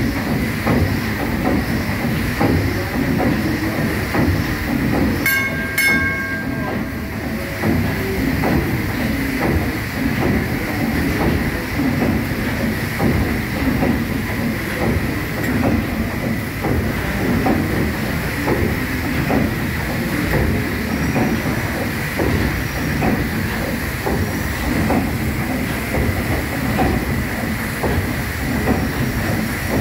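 PS Waverley's three-cylinder triple-expansion steam engine running smoothly under way, its cranks and rods turning the paddle wheels with a steady rhythmic beat and a faint steady high tone over the machinery noise.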